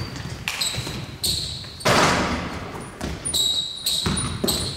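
A series of thuds roughly a second apart, each trailing off in an echo, with short high squeaks between them; the loudest and longest comes about two seconds in.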